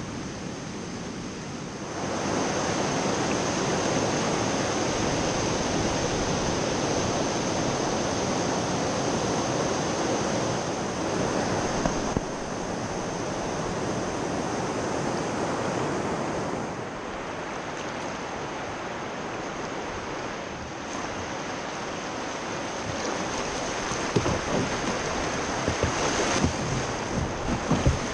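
Steady rush of white water on a small river: water spilling over a low weir and breaking in rapids around the bow of a kayak.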